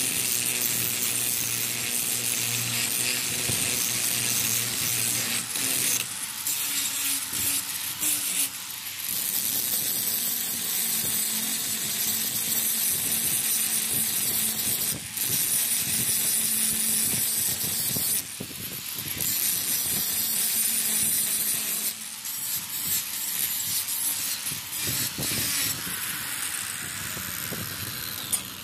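Power grinder working the steel of an old bearing: a steady, hissy grind with faint motor hum, easing off briefly several times as the tool is lifted from the metal.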